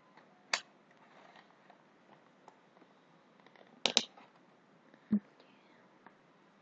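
A few sharp, isolated clicks and knocks over a faint steady hiss: one about half a second in, a louder double click near four seconds, and a duller knock a second later.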